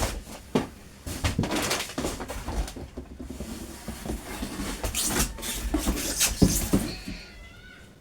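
Grocery packages being handled: rustling packaging with repeated knocks and taps as items are picked up and set down.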